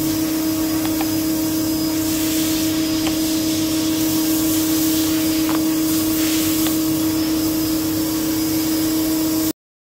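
Steady hum and hiss of a CNC flatbed cutting machine's vacuum hold-down blower running, one strong low tone with fainter ones above it, stopping abruptly near the end.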